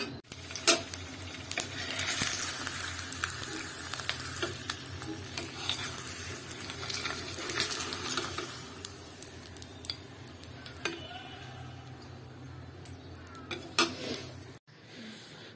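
An egg frying in hot oil in a non-stick frying pan, sizzling, with a steel spatula clinking and scraping against the pan as the egg is turned and lifted out. The sizzle is strongest in the first half and dies down after that.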